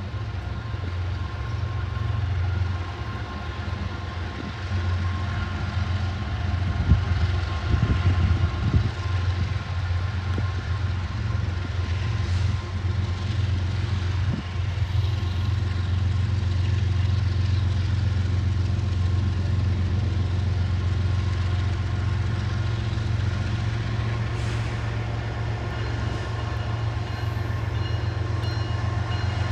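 Diesel freight locomotive running with a steady low drone as the train approaches slowly, with a few brief knocks about a quarter of the way in.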